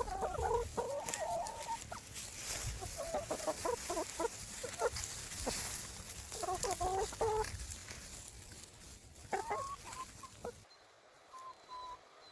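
Chickens clucking in four short bouts over a steady hiss with scattered clicks. Near the end the whole sound drops away abruptly to a much quieter background.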